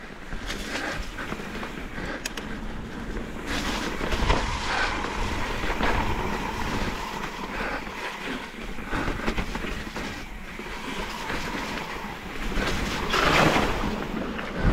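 Mountain bike rolling down a dirt trail: tyre noise and the bike rattling over roots and bumps, rising in two louder swells.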